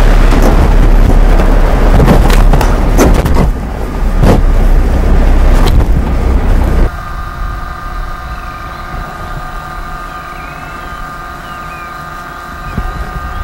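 A vehicle driving over a rough dirt track, its engine and wind rumbling with several sharp knocks and jolts. About seven seconds in the sound cuts off abruptly to a much quieter steady hum with faint high chirps.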